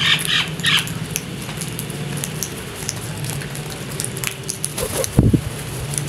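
House crows giving a few harsh caws in the first second, then small clicks of beaks pecking at grain on concrete, with a brief low flutter of wingbeats about five seconds in.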